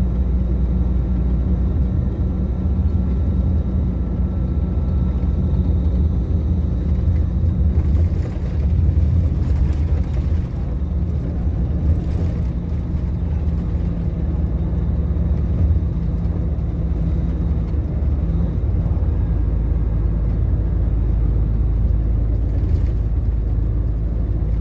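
Steady low rumble of a road vehicle heard from inside while it drives along a highway: engine and tyre noise.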